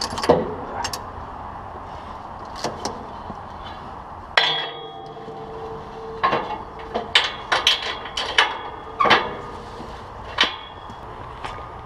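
Metal clanks and clicks of a ratchet tie-down strap being hooked and worked on a machine's boom. The knocks come at uneven intervals: one rings briefly about four seconds in, and a quicker run follows in the second half, over a low steady hum.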